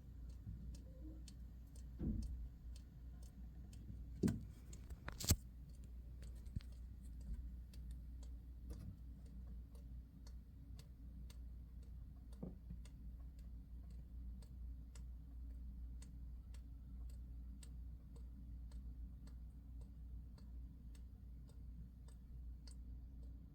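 Water dripping steadily onto the floor: faint, small ticks at an even pace over a low steady hum, with a few louder knocks in the first several seconds.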